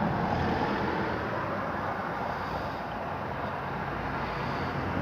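Vehicle running: a steady engine hum with road and wind noise that cuts off suddenly at the end.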